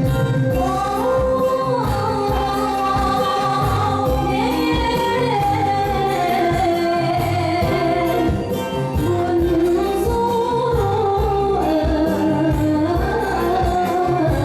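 A voice singing a long, gliding melody over a band with a steady beat, in the style of Lao khap ngum and ramwong dance music.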